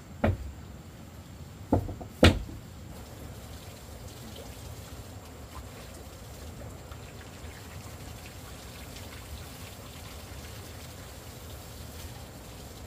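Three sharp knocks in the first two and a half seconds, the third the loudest, over a steady faint background hiss.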